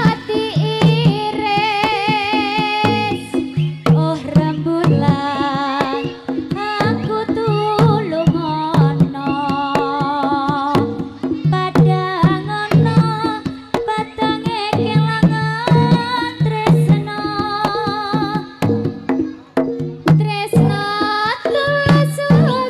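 Live jaranan music: kendang hand drums beat a steady, driving rhythm under a wavering, ornamented melody line.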